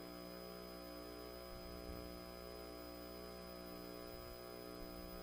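Faint, steady electrical mains hum: a buzz of several unchanging tones with a thin high whine over it.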